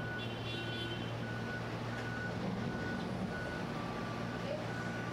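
A repeating electronic warning beep, one short tone about every 0.7 seconds, like a vehicle's reversing alarm, over a steady low hum.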